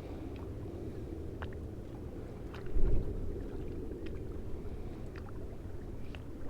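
Wind rumbling on the microphone, with one stronger gust about three seconds in. Faint short high chirps sound here and there above it.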